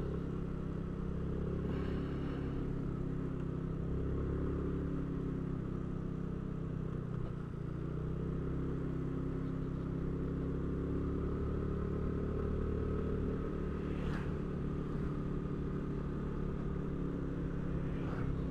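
Motorcycle engine running steadily while riding, with a brief dip about seven seconds in.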